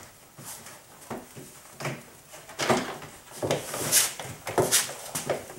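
Plastic interior door trim panel of a minivan being handled and worked off the door: a string of irregular clicks, knocks and rattles, loudest a few seconds in.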